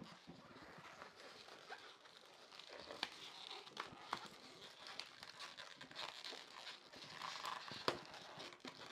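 Latex balloon being handled and twisted into place: faint rubbery rubbing and squeaking with small crinkles and clicks.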